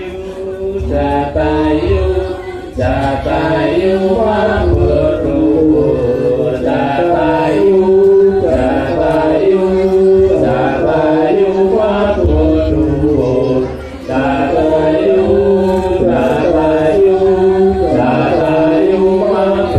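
Javanese gamelan music with voices singing a chant-like melody in long held notes that step from pitch to pitch. The sound dips briefly twice, a few seconds in and about two thirds of the way through.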